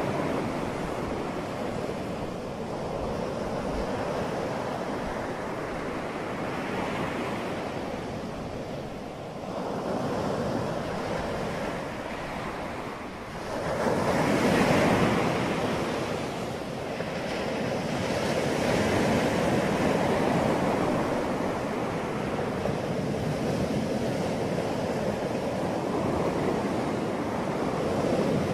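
Steady rushing noise like wind buffeting a microphone, swelling and fading, loudest about fourteen seconds in.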